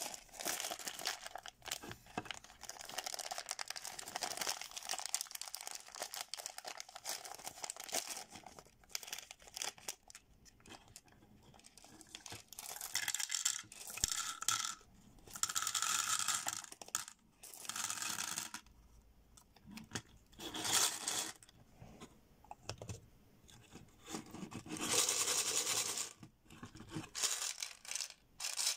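Plastic candy wrapper crinkling and being torn open over the first several seconds. Then come intermittent bursts of M&M's candies pouring and rattling into a small plastic gumball-machine globe.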